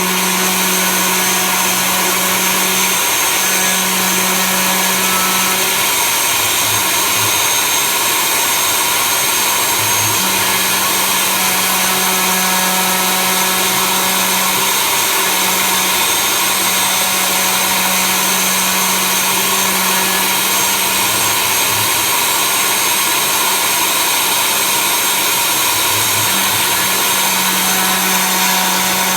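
CNC machine running a job under machine control: a steady high-speed motor whir, with a lower hum that drops out and comes back every few seconds.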